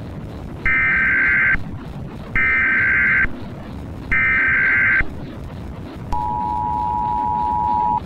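Emergency Alert System SAME header: three short bursts of data screech, each about a second long. About six seconds in, the steady two-tone EAS attention signal follows and holds. A low rumble runs underneath throughout.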